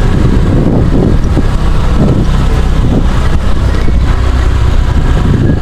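Motorcycle engine running with a steady low rumble as the bike rides along, with wind buffeting the microphone.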